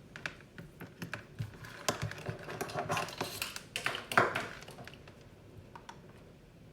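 Handling clicks and taps of multimeter test leads and probes against a capacitor's terminals: a quick irregular run of small clicks and knocks, busiest just before a louder knock about four seconds in, then only faint handling.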